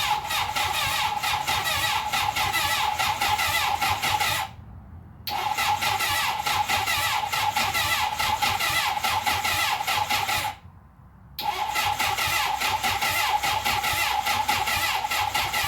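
Starter motor cranking a 1980 Honda CB750F's inline-four with the fuel shut off, a steady whine with fast even pulses, in three long bursts separated by two short pauses; the engine does not fire. It is cranked in first gear with the clutch lever pulled in, to jar loose clutch plates that are sticking.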